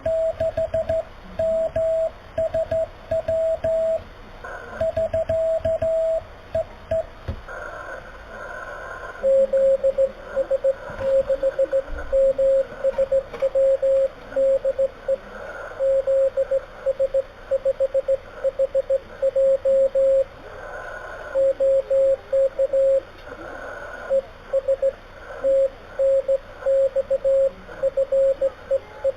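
Slow Morse code received on an amateur radio: dots and dashes of a steady beep tone over a background hiss of band noise. About eight seconds in, after a short pause, the sending switches to a slightly lower-pitched tone.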